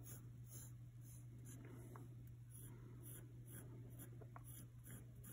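Graphite pencil sketching on paper: faint, short scratchy strokes, about three a second, over a steady low hum.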